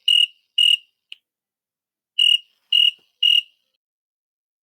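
High-pitched beeps of one steady pitch, short and evenly spaced about half a second apart, in groups of three with a pause between groups.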